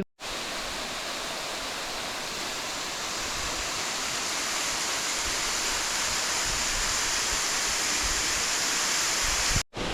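Steady rush of falling or fast-running water, like a waterfall or mountain stream, growing slowly louder.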